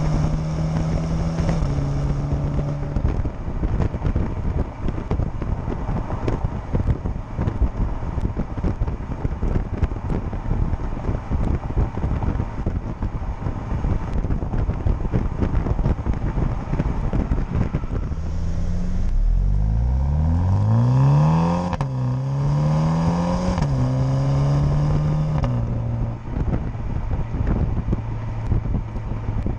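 MINI JCW Countryman's turbocharged four-cylinder exhaust under way, mostly buried in wind and road rush. About two-thirds of the way in, the revs climb, dip at a gear change, climb again, then settle to a steady lower note.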